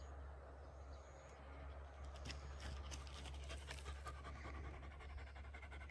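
A dog panting, with a run of light clicks and scratches about two seconds in.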